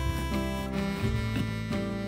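Background music, an acoustic guitar tune.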